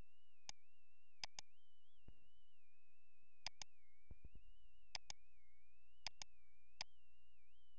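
Computer mouse clicking, mostly in quick double-clicks (pairs of sharp clicks) every second or so while opening folders, with a couple of dull knocks between them. A faint high whine that wavers in pitch runs underneath.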